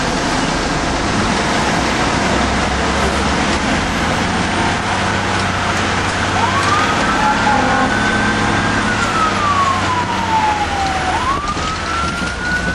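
Steady engine and road noise inside a fire engine's cab. About six seconds in a wail siren starts up: it rises, holds high for a couple of seconds, slides slowly down, then rises again near the end.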